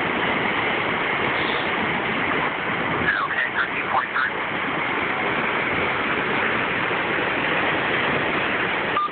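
Fast floodwater from the overflowing Tiber River rushing and churning along a street and against a building's foundation: a steady, loud rush of water.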